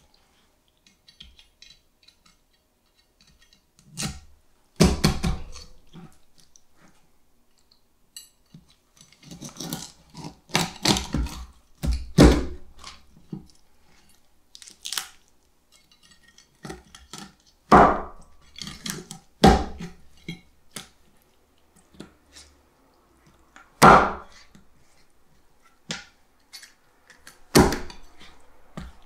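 A kitchen knife chopping through a striped beakfish's head on a cutting board as the head is split in half: irregular heavy thunks and bone cracks, some in quick clusters, with small knocks and clicks of the knife and fish between them.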